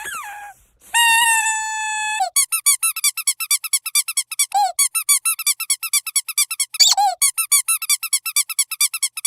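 Squeaky dog toy: one long held squeak, then squeezed over and over in a fast, even run of short squeaks, several a second.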